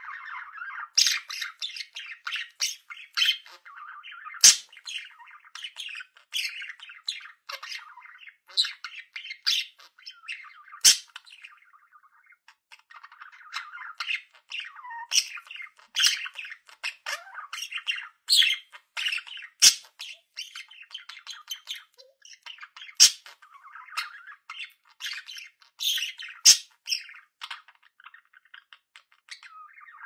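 Budgerigars' warbling chatter, running on without a break and studded with sharp chirps and squawks.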